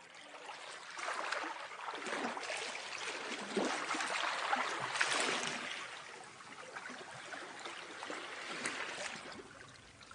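Sea waves washing in, swelling and ebbing every few seconds.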